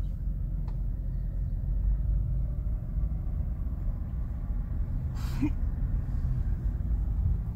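Steady low rumble of tyres and road heard inside the cabin of a moving Hyundai as it coasts along a highway in neutral with no throttle.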